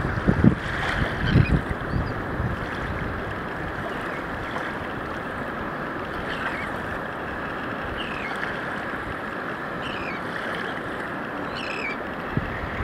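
Steady rush of wind and surf, with wind buffeting the microphone in the first second or so. About half a dozen short, high, falling bird calls come scattered through it.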